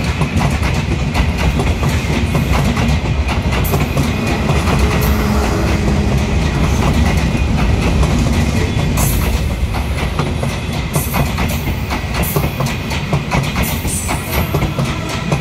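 Bangladesh Railway intercity passenger coaches rolling past close by: a steady rumble of steel wheels on the rails with repeated clickety-clack from the rail joints. Brief high, sharp sounds join in over the second half.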